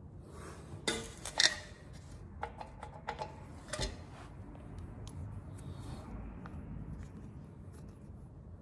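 Handling noise from small parts: a cluster of sharp clicks and taps about a second in, a few lighter clicks around three to four seconds in, then faint rustling as a screw and a plastic tube of blue threadlocker are worked by hand.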